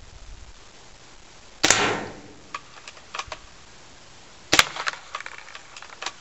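Two airsoft gun shots about three seconds apart, each a sharp crack followed by a few lighter clicks and rattles.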